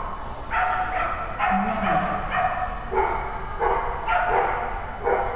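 Dog barking over and over in short, sharp barks, about two a second.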